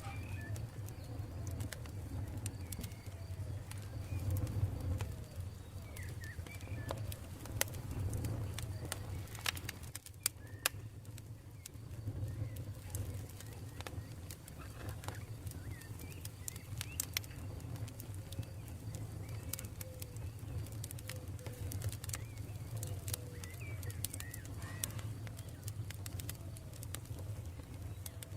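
Campfire crackling, with sharp pops scattered throughout over a low, steady rumble, and short bird calls in the background.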